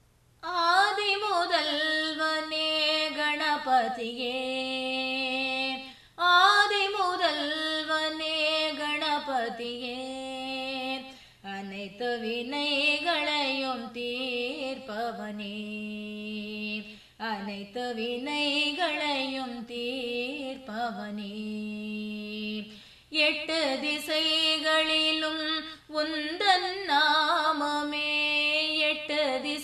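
A woman singing a Tamil devotional song, one voice in long phrases with gliding, wavering pitch and brief pauses between them.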